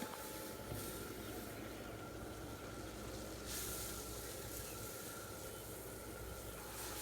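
Butter and oil sizzling in a hot wok, a steady hiss.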